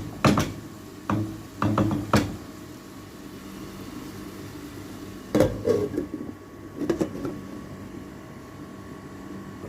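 A utensil knocking and clinking against a cooking pot several times while vegetables are stirred, with a steady low hum underneath.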